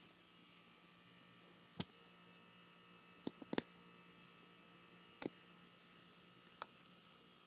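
Faint steady electrical hum, with a few short soft clicks scattered through it.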